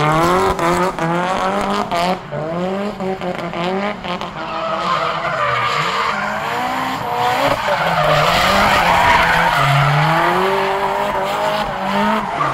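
Drift car engine revving up and down in quick, repeated throttle stabs while the car slides, with tyre squeal building from about four seconds in.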